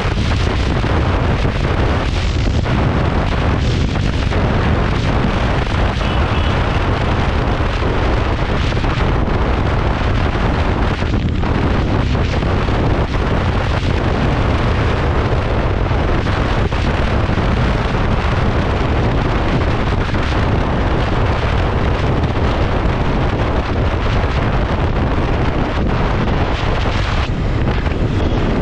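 Royal Enfield Continental GT 650 motorcycle ridden fast. Steady, heavy wind buffeting on the microphone mostly covers the parallel-twin engine.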